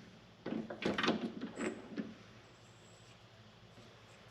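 A short run of clattering knocks and scrapes from about half a second to two seconds in, made by metal parts or tools being handled at a mini lathe, followed by quiet.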